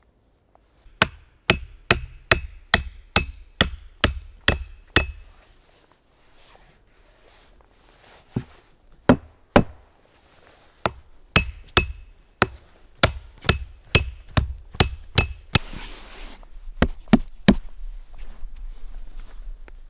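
Hammer driving nails into wooden boards: two runs of about ten sharp blows each, roughly two to three a second, each with a slight metallic ring. A few single blows fall between the runs, and a short scrape is followed by three last blows near the end.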